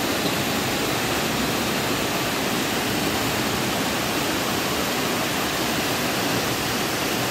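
Waterfall cascading down a rock face into a shallow pool: a steady, even rush of falling water.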